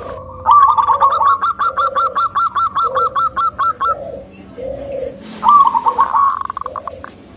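Zebra dove (perkutut) calling: a fast run of short clipped notes, about six a second for roughly three and a half seconds, then another brief run about five and a half seconds in, with softer, lower coos between.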